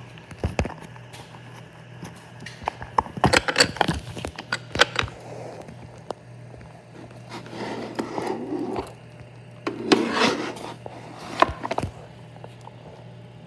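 Handling noise from toys: scattered clicks, taps and scrapes, with a couple of short rubbing stretches, as a toy pizza and a hand puppet are moved about on a toy shelf, over a faint steady hum.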